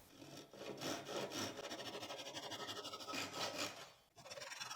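Hand saw cutting through a wooden dowel in repeated back-and-forth strokes, with a brief pause about four seconds in.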